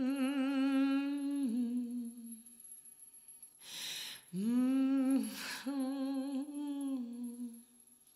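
A voice humming long held low notes, the first note ending and the second beginning after a sharp breath drawn in about halfway through.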